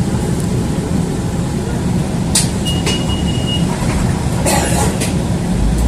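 City bus running, heard from inside: a steady low engine rumble with a few rattles and knocks, and a short high electronic beep about three seconds in.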